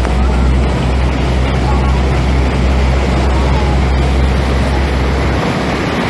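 Loud, steady rush of fast-flowing floodwater, with a deep steady rumble underneath that drops away near the end.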